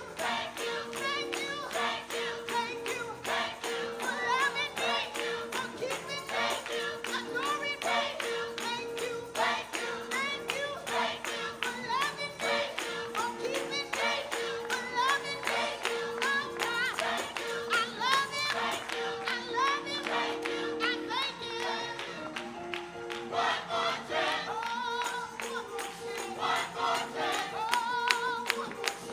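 Gospel choir singing with band accompaniment, over a fast, steady beat and a sustained held note.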